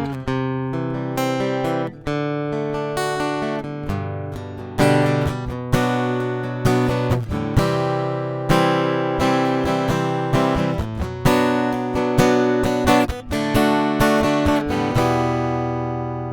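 Epiphone Hummingbird Pro acoustic guitar played through its built-in Fishman piezo bridge pickup: strummed chords mixed with picked notes. The playing ends on a chord left to ring out near the end.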